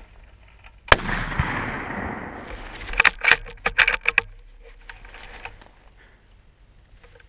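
A single rifle shot about a second in, its report echoing across the open field for over a second. About three seconds in comes a quick run of sharp metallic clicks, the rifle's bolt being worked to chamber another round.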